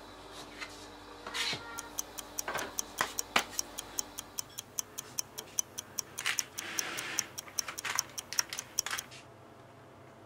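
Clock ticking rapidly, about four ticks a second, starting about two seconds in and stopping about nine seconds in, with a few duller knocks among the ticks; the ticking marks an hour of proofing time passing.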